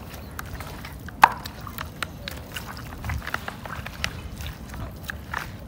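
Raw goat meat being washed by hand in a plastic basin of seawater: irregular sloshing, squelching and small splashes as the hands knead the meat, with one louder, sharper splash about a second in.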